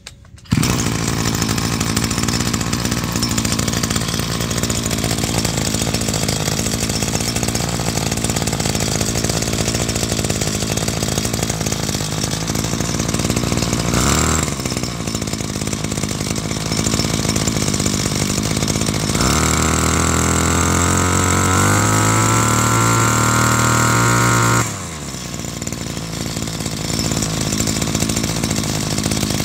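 32cc two-stroke engine of a Maruyama-built, Kubota-badged brush cutter starting up about half a second in and running. From about 19 s it revs up with a rising pitch for about five seconds, then drops back to idle.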